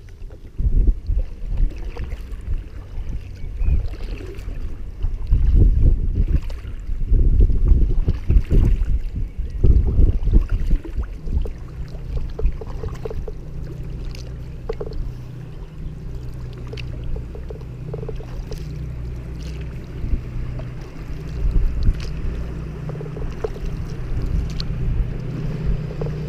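Irregular low buffeting and water noise around an inflatable canoe on a choppy river. From about halfway through, the steady low hum of a motor cruiser's engine comes in and carries on to the end.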